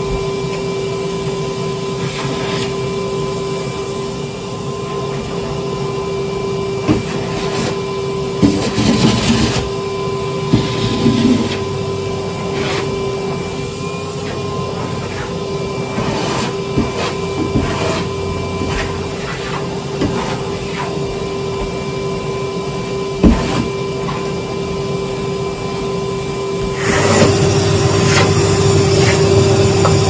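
Cylinder vacuum cleaner running with a steady motor whine while carpeted stairs are vacuumed, with occasional short knocks and bumps. Near the end it gets louder as the nozzle comes close.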